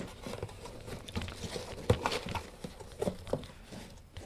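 Cardboard shipping box being opened by hand: irregular knocks and scrapes as the flaps are pulled back, the sharpest knock about two seconds in.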